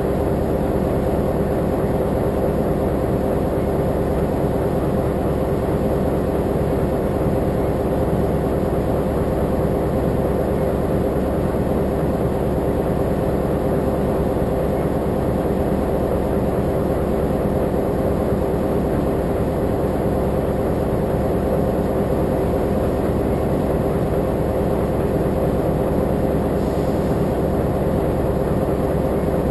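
Diesel locomotive engine idling, a steady low hum with several held tones that does not change.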